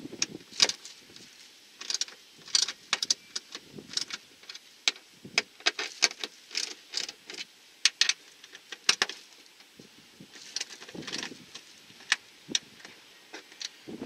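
Socket ratchet clicking in short, irregular runs as nuts are tightened onto the bolts of a TV wall-mount bracket, with small metallic clinks of the hardware being handled.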